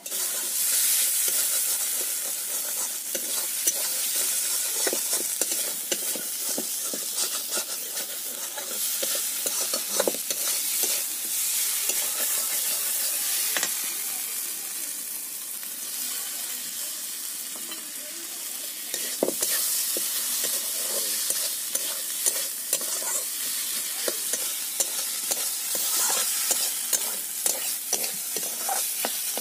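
Fish pieces in spice paste sizzling in hot oil in an iron kadai, with a steady hiss throughout. A spatula stirs and scrapes the pan, giving frequent short clicks and scrapes over the sizzle.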